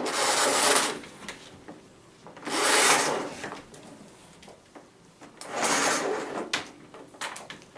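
Retractable power cord of an Amazon Basics bagless cylinder vacuum being pulled out of its reel in three pulls, each a short rubbing, sliding sound.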